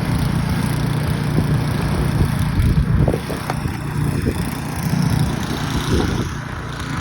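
An engine running steadily, with a constant low hum under a broad hiss.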